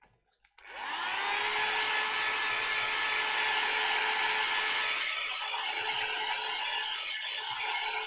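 Handheld electric blow dryer switched on about half a second in, its motor whine rising as it spins up, then blowing steadily to dry wet watercolour paint.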